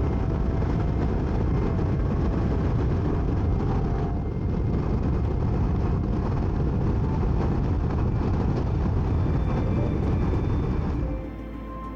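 Steady rush of wind and engine noise from an adventure motorcycle cruising along an open highway, with wind buffeting the microphone. Near the end it drops away and music comes in.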